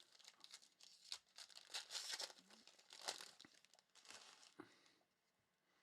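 Faint crinkling and tearing of plastic trading-card pack wrappers as packs are opened and handled, irregular crackles that stop about five seconds in.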